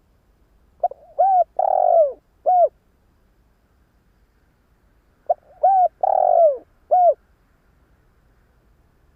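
A spotted dove (cu gáy) decoy male gives its territorial coo twice, each time as a few short coos, one longer coo that falls in pitch, and a last short coo. This is the crow used to provoke wild doves into answering.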